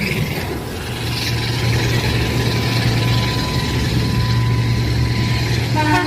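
General Electric diesel locomotive engine running with a steady low drone; a horn begins to sound just at the end.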